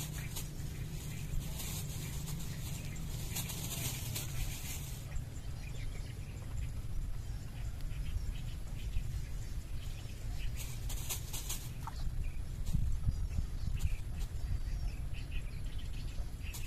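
Outdoor pond-side ambience: a steady low rumble, typical of wind on the microphone, with scattered bird chirps. A high hiss runs through the first five seconds.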